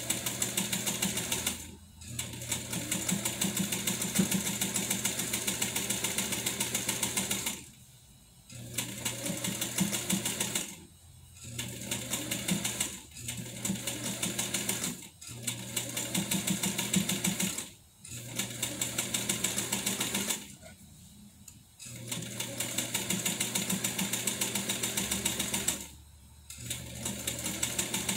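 1957 Atlas straight-stitch sewing machine stitching through linen, its motor running with a fast, even needle rhythm. It stops and starts again several times, in runs of a few seconds each.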